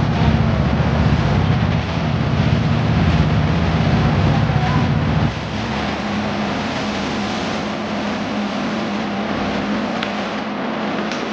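An engine running steadily with a low rumble, which falls away abruptly about five seconds in, leaving a lighter running sound.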